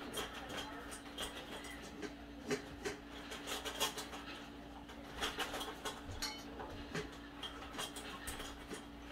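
Kitchen clatter: scattered clinks and knocks of dishes, pots and utensils being handled, over a steady low hum.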